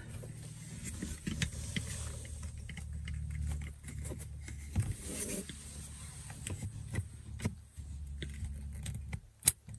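Small clicks, rustles and scrapes of hands working a tweeter's wiring connector and plastic dash trim in a car's dashboard speaker opening, over a steady low hum. A sharp click near the end as the connector seats.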